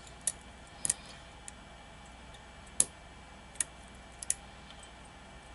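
Scattered sharp little clicks, about eight of them, from a lock pick working the pins of a pin-tumbler challenge lock held under tension: single-pin picking, probing for a binding pin.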